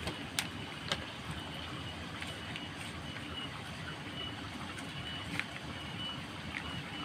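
Steady rain falling, with a few sharp clicks as a plastic sauce sachet is handled and squeezed. A faint high-pitched tone comes and goes in short pulses.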